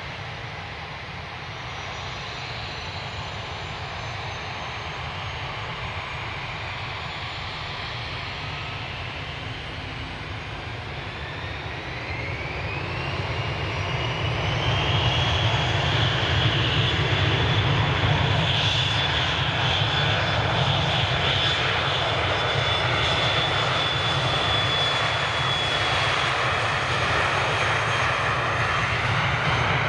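Three-engined Dassault Falcon business jet's turbofans: running steadily at first, then spooling up with a rising whine about twelve seconds in. The whine settles into a steady high pitch over a loud rumble as the engines reach takeoff power and the jet starts its takeoff roll.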